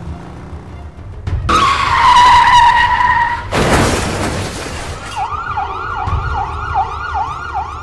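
Tyres screech in a skid for about two seconds, ending in a crash about three and a half seconds in. An ambulance siren then starts, sweeping quickly up and down over and over.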